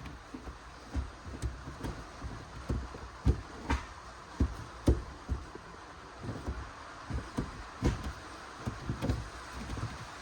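Gear lever of an Audi A1 worked through the gears with the engine off, giving irregular clunks and clicks from the newly fitted shifter box and cables as each gear is selected.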